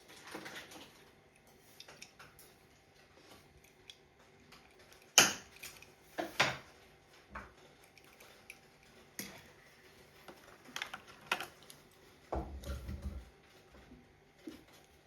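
Small hard clicks and clinks of 1:64 diecast toy cars and their plastic packaging being handled, loudest about five and six and a half seconds in, with a low thud near the end.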